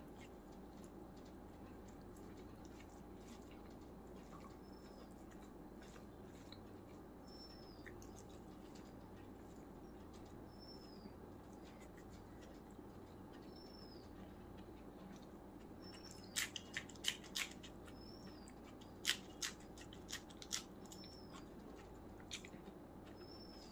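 Quiet eating by hand: a run of sharp wet mouth clicks and smacks from chewing rice comes in the second half. A short high chirp repeats about every three seconds over a steady low hum.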